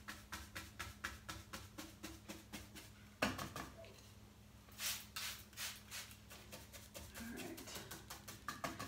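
Paint brush tapping rapidly against a painted wooden buffet, about five light taps a second, stippling wet patina paint. About three seconds in there is a sharp knock, followed a couple of seconds later by a few hissing squirts of a plastic trigger spray bottle misting water onto the paint.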